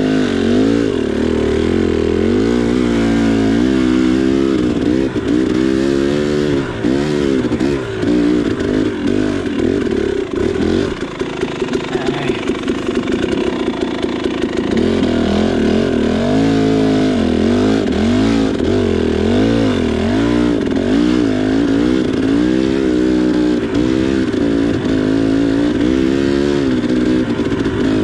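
2019 KTM 300 XC two-stroke dirt bike engine, its revs rising and falling again and again as the throttle is worked on the trail. There is a choppier, lower-revving stretch near the middle.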